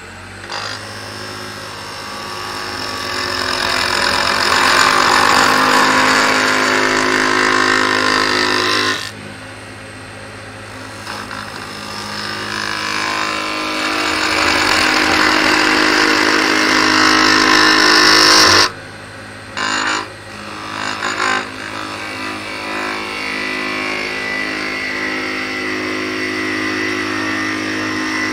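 Wood lathe running with a steady low hum while a turning tool cuts the spinning magnolia blank, shaping the bottle's taper. The cutting noise comes in long loud passes, breaking off about nine seconds in and again about two-thirds of the way through, with a few short touches, then lighter steady cutting near the end.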